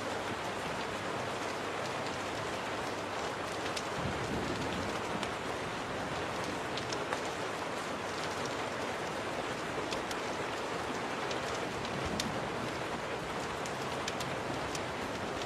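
Steady rain on a window, a dense even hiss, with scattered faint sharp crackles of a wood fire ticking through it a few times a second.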